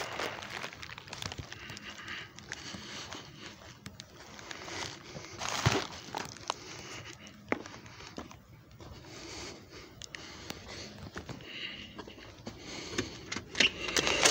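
A plastic poly shipping mailer crinkling and rustling as it is carried, with footsteps and phone-handling noise. A few sharper knocks come near the end.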